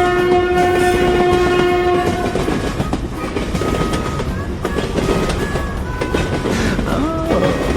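A train horn holds one steady note and stops about two seconds in. It gives way to a train running along the rails with a clickety-clack of wheels.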